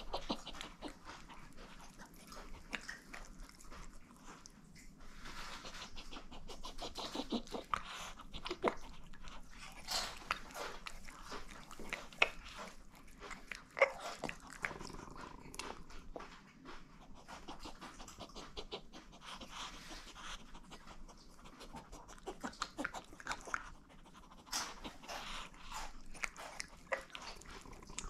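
Chihuahua chewing and gnawing roast chicken, a run of small irregular mouth clicks and crunches.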